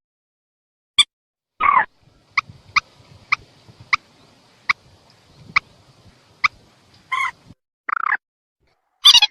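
Mandar (rail) calls: a series of short, sharp, clipped notes spaced irregularly about half a second to a second apart, broken by a few longer, harsher calls.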